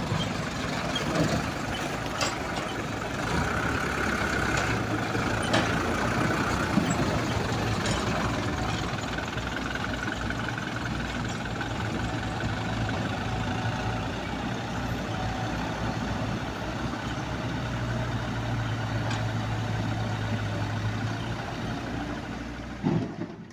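Diesel engines of a mini excavator and dump trucks running, the low engine note growing stronger for stretches of a few seconds, with scattered clanks and knocks. A few loud knocks come just before the sound stops abruptly.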